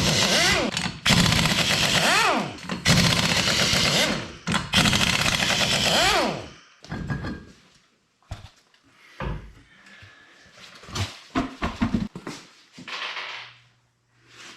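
Impact wrench run in four bursts of rapid hammering, its motor pitch rising and falling in each, followed by a few scattered clunks and knocks of parts being handled.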